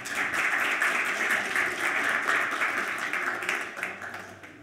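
Audience applauding after a talk, with many overlapping hand claps that die away near the end.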